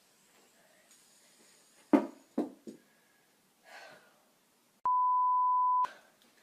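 Three quick sharp knocks, then a steady one-second beep at a single pitch, with all other sound cut out beneath it, typical of a censor bleep laid over a word.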